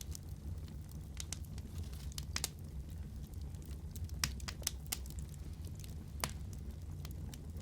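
Bonfire burning with a steady low rumble of flame and irregular sharp crackles and pops of burning wood, a few louder snaps among them.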